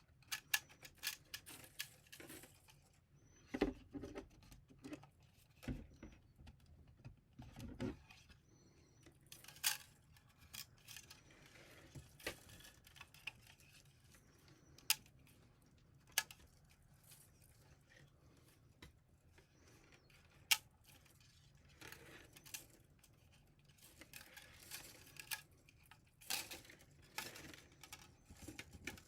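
Scattered clicks, taps and short rustles of plastic 3D printer filament and a spool being handled while filament is wound by hand onto an empty spool.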